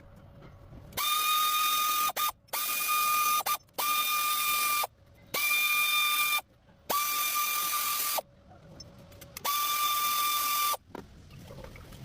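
A power tool runs in about six one-second bursts with short pauses between, each burst a steady, even whine over hiss that spins up at the start, typical of running bolts in and out during a water pump replacement.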